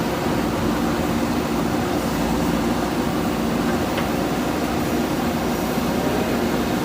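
Backhoe loader's diesel engine running with a steady, even hum.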